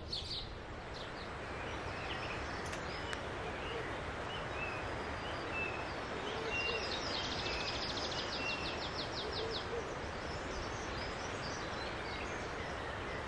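Woodland ambience: a steady outdoor background hiss with wild birds singing. A few short chirps come first, then, about halfway through, a rapid trill of repeated notes lasts about three seconds.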